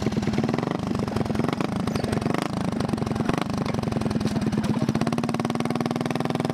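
Small motorcycle engine idling steadily.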